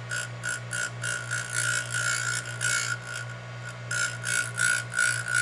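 Electric piston ring gap grinder running with a steady motor hum while its abrasive wheel grinds a piston ring's end in short repeated rasps, about two or three a second, as the ring is worked back and forth against the wheel to open up its end gap.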